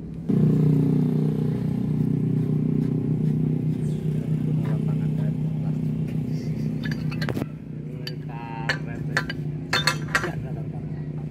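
Small petrol engine of an alkon water pump running steadily. In the second half, pipe wrenches clink on the steel drill pipe joint several times, with a short metallic rattle.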